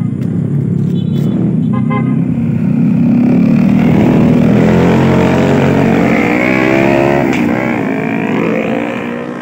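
Motorcycle engine riding past close by, loudest around four seconds in, with a brief horn beep about two seconds in. Later an engine's pitch rises and dips as traffic moves off.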